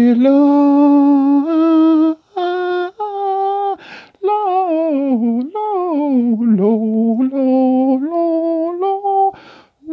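A voice singing a wordless tune in long held notes, stepping between pitches, with one swooping slide down in the middle and a quick breath twice.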